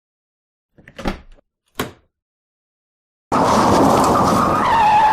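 Two short knocks a little under a second apart, then a car tyre-screech sound effect that starts suddenly and keeps up loudly, its squeal dipping slightly in pitch near the end.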